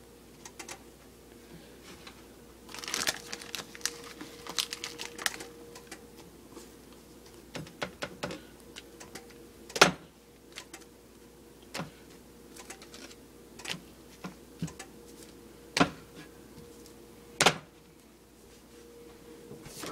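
Food being handled on a hard surface: a stretch of crinkling and crackling a few seconds in, then scattered sharp taps and clicks. A faint steady hum sits underneath.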